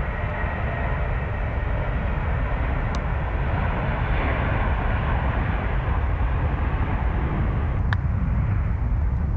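Jet airliner engines at takeoff power on a departure: a loud, steady rushing rumble that swells a little midway, with two brief clicks.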